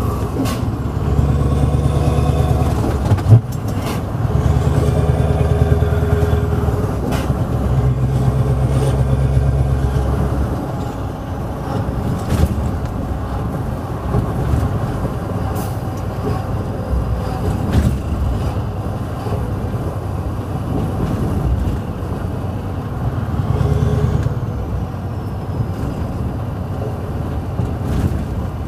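Scania R500 V8 diesel truck engine with loud pipes, heard from inside the cab, pulling hard in three stretches with short breaks between them, then running quieter at a steady cruise, with one more brief pull near the end. A sharp click about three seconds in.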